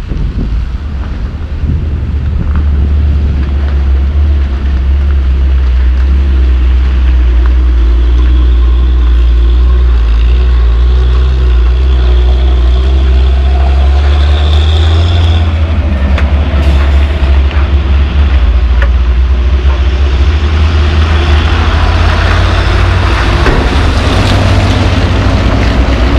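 Heavy dump trucks hauling on a muddy mine road, their diesel engines giving a loud, steady low drone as they drive past. A rougher noise of the trucks grows louder over the last few seconds as one passes close.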